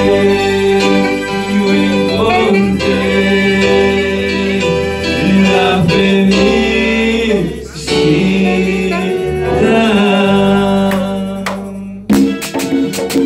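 Live gospel band: male voices singing a slow Spanish-language song over keyboard, guitar and bass. Near the end the music dips briefly, then sharp percussion hits come in.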